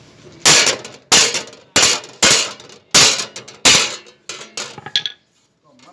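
Hammer striking metal: about seven heavy, ringing blows roughly every half second, then a few lighter taps before it stops suddenly.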